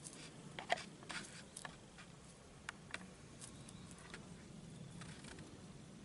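Faint, scattered rustles and ticks of kittens pawing and scuffling at a beetle in dry grass and twigs, bunched in the first two seconds, then sparser.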